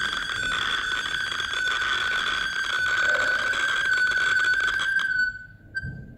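A steady high-pitched whistle of audio feedback, the phone app's live audio looping through the WiFi camera's speaker and microphone during two-way talk. It cuts off suddenly about five seconds in, with one short chirp just after.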